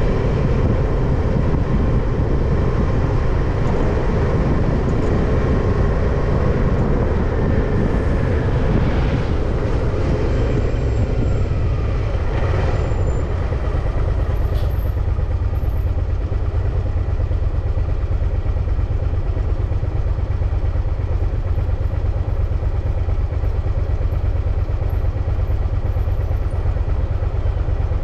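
Steady wind rumble and road noise from a moving bicycle, with motor traffic around it and one vehicle going past about ten seconds in, its pitch falling as it passes.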